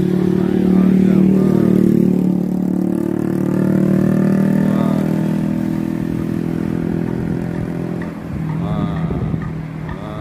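Buses and other traffic passing on a highway: a steady engine drone, with vehicles going by about a second in, midway and near the end.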